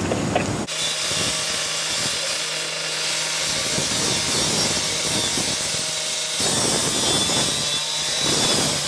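Gas-powered rotary cut-off rescue saw cutting through metal, starting about a second in: the engine runs steadily under load beneath the high grinding noise of the abrasive blade.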